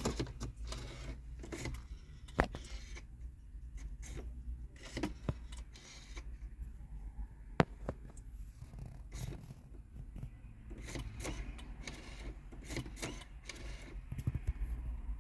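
Handling noise: scattered light clicks and knocks over a low steady hum, with one sharp click about two seconds in and another near the middle.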